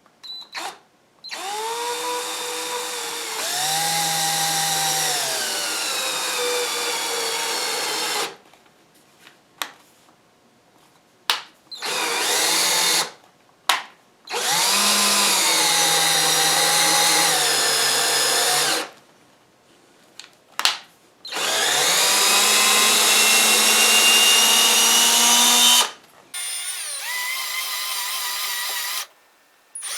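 Electric drill boring a set-screw hole and starting its 1/4-20 thread, run in several bursts of a few seconds with short trigger blips between; the motor's whine rises and falls in pitch as the speed changes under load.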